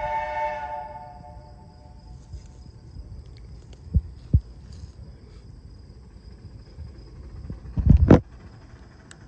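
A train whistle blowing a chord of several tones, fading out within the first couple of seconds. After that come two short low thumps about four seconds in and a louder low rumbling burst near the eighth second.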